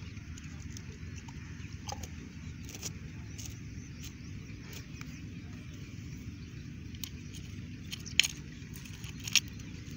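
A steady low background rumble, with a few sharp clicks near the end as the plastic sprinkler rotor is handled and pressed back into its case.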